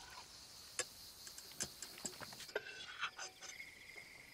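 A few sharp clicks and taps of a metal spoon against a camp cook pot. From about halfway, a steady high trill of crickets sets in.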